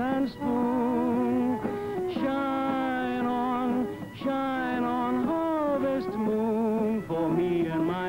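Old film soundtrack: a man singing a slow, old-fashioned song in long held notes with a wide vibrato, with accordion accompaniment beneath, pausing briefly between phrases.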